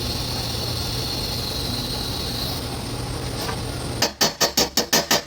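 TIG welding arc giving a steady buzzing hiss. About four seconds in, music with a fast, even beat comes in.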